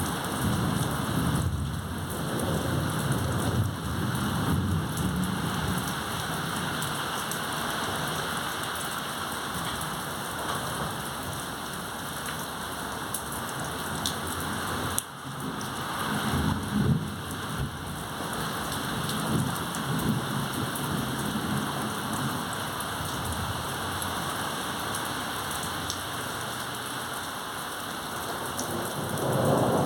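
Heavy tropical thunderstorm: rain pouring steadily, with low rolls of thunder rumbling under it several times.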